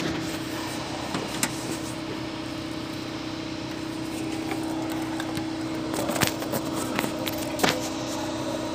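A steady mechanical hum holding one even tone, with a few light clicks and knocks about a second in and again around six to eight seconds in.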